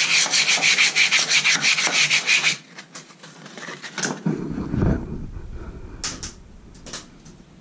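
A round wooden spear shaft being hand-sanded with rapid back-and-forth strokes. The sanding stops abruptly about two and a half seconds in, and a few faint knocks and a low rumble follow.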